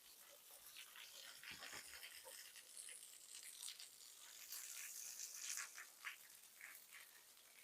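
Near silence with faint, short scuffs and rustles coming irregularly throughout, over a soft hiss.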